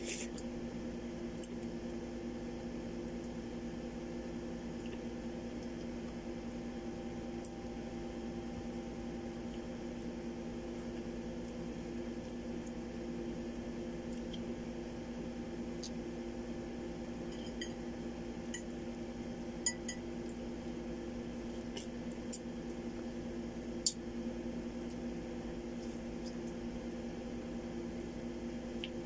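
Close-up eating sounds of a ripe mango being bitten and sucked off its skin: soft wet squishing with a few sharp lip smacks and clicks, the clearest in the second half. A steady electrical hum sits under it throughout.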